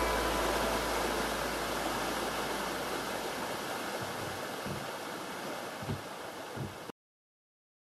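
Shallow river water rushing over rocks, a steady hiss that fades out gradually and cuts to silence about seven seconds in. A few soft low thumps come near the end.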